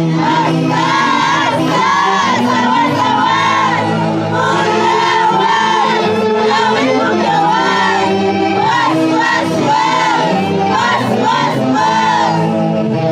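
A group of voices singing together in high, wavering lines over a festival orchestra's steady accompaniment.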